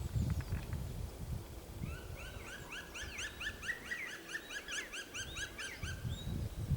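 Black woodpecker calling a long, fast series of short rising notes, about six a second, starting about two seconds in and stopping near the end, over a low rumble of wind.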